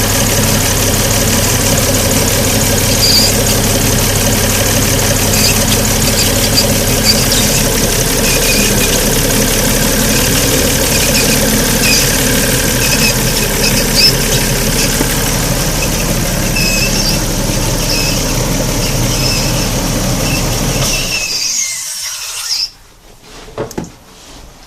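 Alfa Romeo GTV V6 engine running with an intermittent high-pitched squeal. About 21 seconds in the engine stops, the squeal dies out a moment later, and faint ticks follow.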